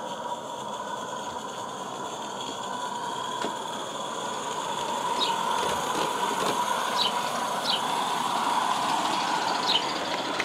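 Small 16mm-scale garden railway locomotive running along 45mm-gauge track, a steady whirring with a hum that grows louder as it approaches, with a few sharp clicks.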